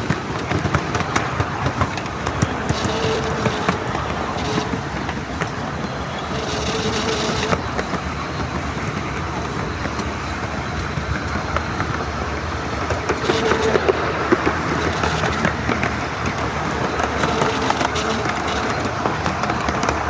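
A 7¼-inch gauge miniature railway train running along the track, heard from aboard: a steady rolling rumble with many small clicks.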